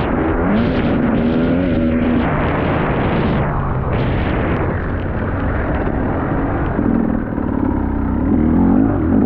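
Motocross motorcycle engine running hard, its pitch climbing and dropping again and again as the throttle opens and shuts through the gears.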